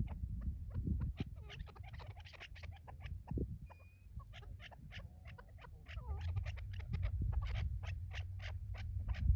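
Chukar partridges calling: a long run of short, sharp clucking notes at about three a second, over a low wind rumble.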